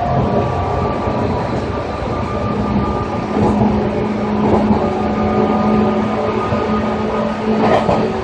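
Running sound inside a JR 205 series electric train under way: steady wheel-and-rail noise with the external-fan traction motors and gears whining at a steady pitch. A lower motor hum grows stronger about three seconds in.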